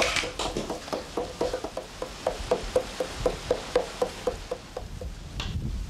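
Rhythmic tapping, about four knocks a second, each with a short ringing note, thinning out and stopping near the end.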